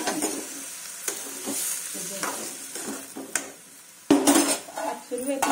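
A spoon scraping and stirring cauliflower, potato and onion in a metal kadai, with a light sizzle from the frying vegetables. About four seconds in, a loud metal clatter as the lid is set on the pan, then another short clink near the end.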